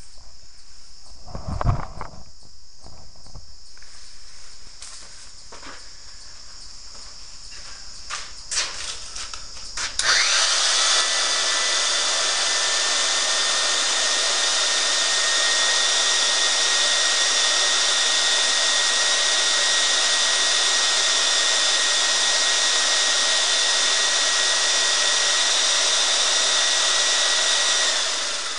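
A few knocks and thumps, then about ten seconds in a machine starts abruptly and runs with a steady high whine and hiss, likely the equipment conveying cornmeal into the loader. It dips briefly at the very end.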